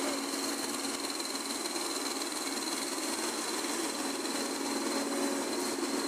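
Diesel engines of asphalt road-paving machines, a paver and a road roller, running steadily, with a faint steady high whine over the engine noise.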